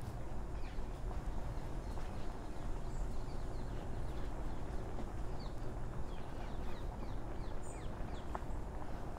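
Steady low rumble of a power wheelchair travelling along a path, with small birds chirping throughout in quick series of short falling notes.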